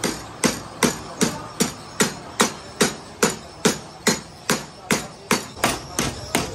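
Steady, regular hammer blows, about two and a half a second, on the insulated wire winding of a welding-transformer coil held on a spindle jig, tapping the turns down tight.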